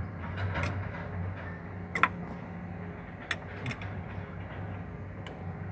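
Sharp metal clinks, about five spread out with the loudest about two seconds in, as hands handle the planetary gears of an excavator swing-motor reduction gearbox, over a steady low hum.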